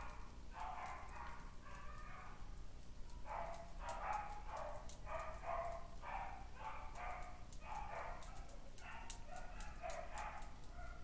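A small dog yapping over and over, about two high-pitched yaps a second, faint, with a short pause about two seconds in.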